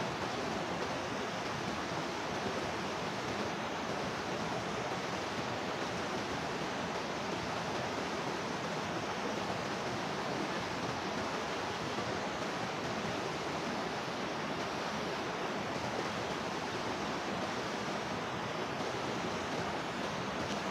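Steady, unbroken rush of running or falling water.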